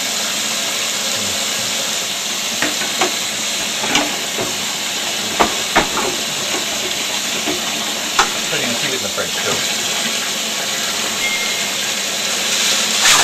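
Kitchen tap running steadily into a sink, with several sharp clinks and knocks of kitchenware being handled in it.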